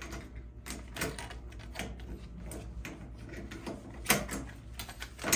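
Scattered metallic clicks and knocks of a lockout padlock and folding lockout hasp being unlocked and taken off, the loudest about four seconds in, over a steady low hum.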